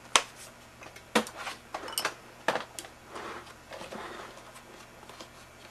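Hard plastic vacuum housing parts being handled: a sharp knock, then a few more clicks and knocks, followed by a stretch of plastic rubbing and scraping as the opened tub vac body is gripped and shifted.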